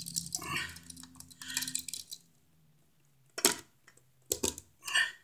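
Small metallic clicks and rattles from wire-stripping pliers and a duplex receptacle being handled while bare copper ground wire is bent into a loop for the receptacle's green ground screw. A crackling cluster of clicks in the first two seconds, then a few sharp single clicks near the end.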